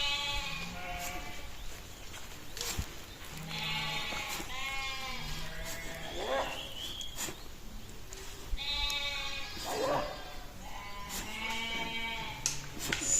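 Several sheep bleating over and over, their wavering calls coming about every second and sometimes overlapping.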